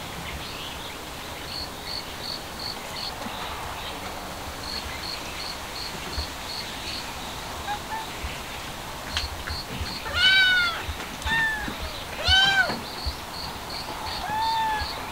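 Cats meowing: about four short meows in the second half, each rising and then falling in pitch, the loudest two about ten and twelve seconds in. Behind them, crickets chirp in short, evenly spaced high pulses.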